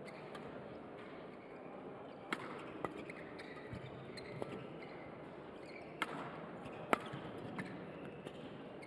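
Badminton rackets striking the shuttlecock in a fast doubles rally: a string of sharp, irregularly spaced hits, the loudest two about six and seven seconds in, with shoes squeaking on the court between them.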